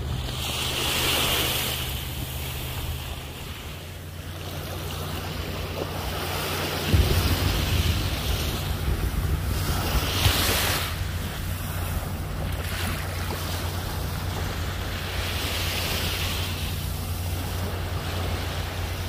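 Small waves lapping and washing onto a sandy shore, the wash rising and falling every few seconds. Wind buffets the microphone, and a steady low rumble grows stronger about seven seconds in.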